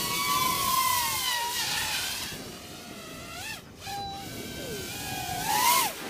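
Eachine Wizard X220S FPV racing quadcopter flying fast overhead, its brushless motors and propellers whining, the pitch rising and falling as the throttle changes. It fades away in the middle and comes back louder near the end with a quick rising-then-falling whine as it passes.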